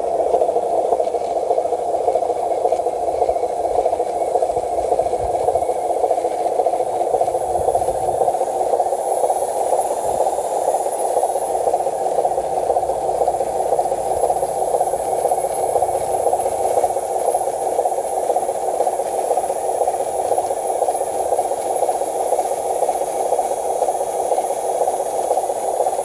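A small motor running steadily without a break, a constant mid-pitched mechanical noise.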